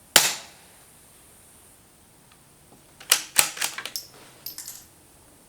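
Suppressed .22 LR Ruger Precision Rimfire rifle firing one sharp shot, then about three seconds later its bolt being worked open and closed in a quick run of metallic clicks.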